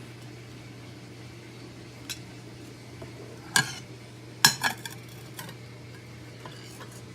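Microwave oven running with a steady hum while the graphite core of a pencil inside arcs, giving sharp crackling snaps, the loudest about three and a half and four and a half seconds in. The arcing is the sign of the graphite burning and overheating, a fire hazard.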